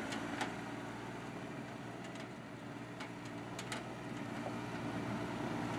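Toyota pickup truck engine running steadily as the truck drives off slowly over a dirt track, a low even drone with a few scattered sharp ticks.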